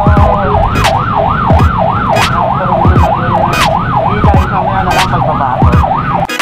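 Ambulance siren in fast yelp mode, rising and falling about three times a second, heard from inside the ambulance over the engine and road rumble, with a few knocks from the ride.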